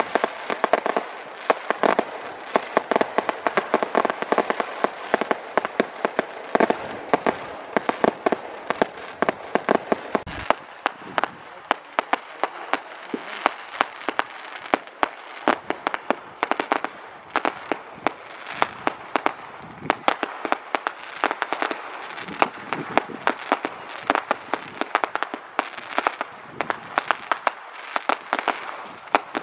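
Retail fireworks going off nonstop: a dense run of sharp crackles and pops, many a second, over a continuous rushing noise.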